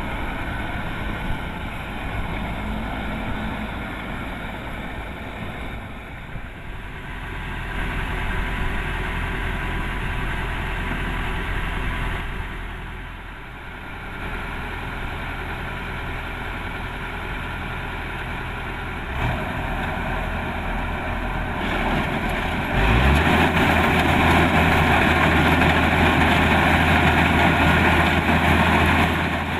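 Kubota DC-105X combine harvester running as it harvests rice, its diesel engine a steady drone under machinery noise. About 23 seconds in it gets markedly louder and fuller.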